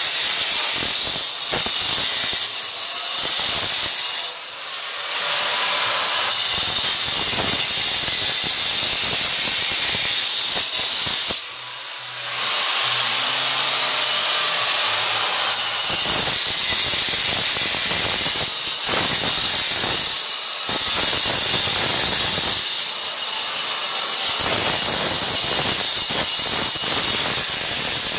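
Corded handheld angle grinder cutting into a concrete floor slab: a loud, steady, hissing grind, with two brief dips in loudness about four and about eleven seconds in.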